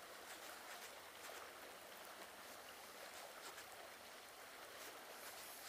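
Near silence: a faint, steady outdoor hiss of riverside ambience, with a few faint ticks.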